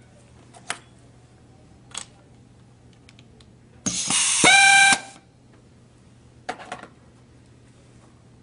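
Sherex Flex 5S pneumatic rivet nut tool cycling about four seconds in to set a rivet nut in a metal plate: a burst of air hiss, then the air motor's whine rising and holding a steady pitch for about a second. Light clicks of metal parts being handled come before and after.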